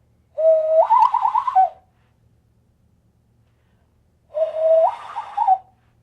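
Cupped-hand whistle blown through the slit between the thumbs, sounded twice: each call holds a steady low note, then jumps up and warbles rapidly as the bottom hand flaps up and down, and drops back at the end. It imitates a bird call.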